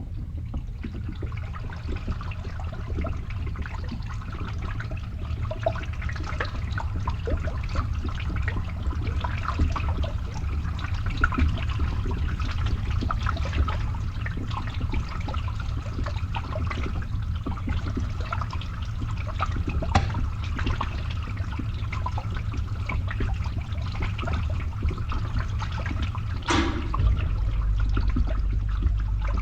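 Water draining through a pipe, trickling and gurgling, over the steady low hum of a running pump. One louder gurgle comes near the end.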